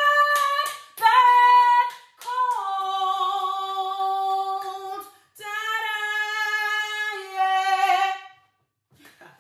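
A solo female voice sings unaccompanied, ending a phrase on a few notes. The last two notes are each held about three seconds, and the singing stops about a second before the end.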